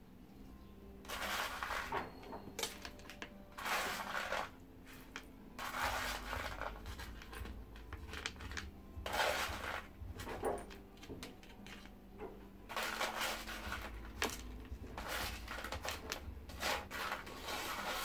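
Small white pebbles rattling and scraping against each other and the wooden pot as they are tipped from a scoop and pushed into place by hand. They come as a series of separate rattles, each about a second long.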